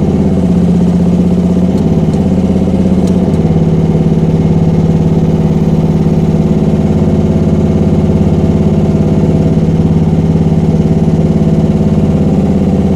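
Gasoline engine of a Rippa R10 mini excavator running steadily while the hydraulics swing the side swing boom. The engine tone shifts briefly during the first three seconds as the hydraulics take load, then holds steady.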